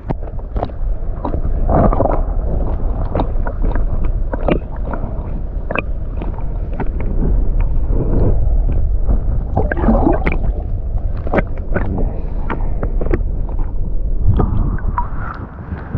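Muffled underwater sound from a submerged camera: a low rumble of moving water with gurgling and many small knocks and clicks.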